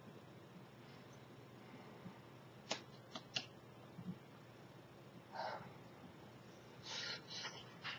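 Faint scattered clicks and short rustles from hands meeting and brushing together during sign language, over quiet room tone: three sharp clicks a little before the middle, and soft brushing noises later on.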